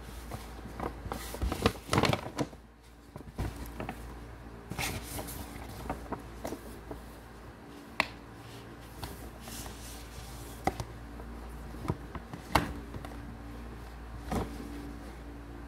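Objects being handled close by: scattered clicks, knocks and short rustles, the densest cluster about two seconds in, with single sharp clicks later on.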